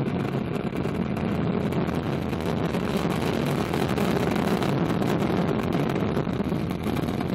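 Ariane 5 rocket's solid boosters and Vulcain main engine firing just after liftoff: a loud, steady, deep rumble.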